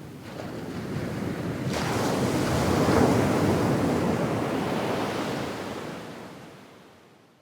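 Medium-sized sea wave washing up onto a sandy beach: the rumble swells, a hiss of foam comes in under two seconds in, peaks about three seconds in, then dies away.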